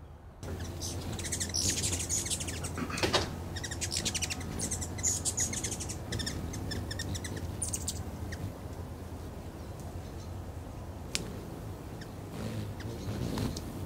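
Hummingbirds chattering at a feeder: rapid runs of high, thin chips, busiest in the first half, over a steady low hum.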